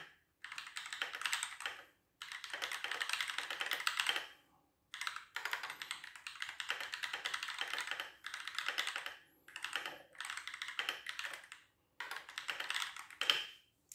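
Fast touch-typing on a mechanical keyboard: rapid runs of key clicks in spurts of one to four seconds, broken by short pauses.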